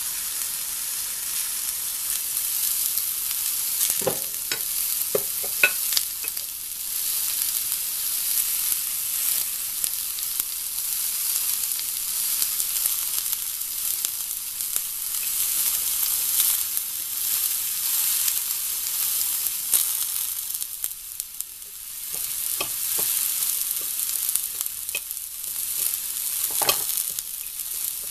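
Vegetables frying in a cast-iron skillet on a tabletop gas stove: a steady sizzling hiss, with a few short knocks about four to six seconds in and again near the end.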